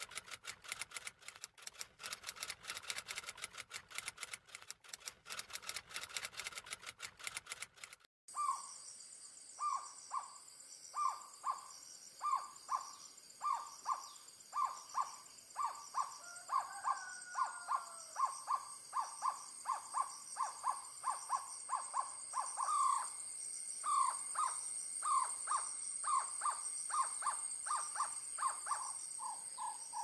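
Typewriter key clicks for about eight seconds, then an owlet calling: a long series of short hoots, about one to two a second and coming faster toward the end. Under the hoots is a steady high-pitched insect drone.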